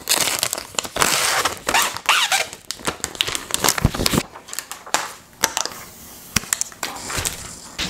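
Thin protective plastic film being peeled off a vanity mirror and handled, crinkling and crackling in irregular bursts, quieter with only small clicks for a couple of seconds near the end.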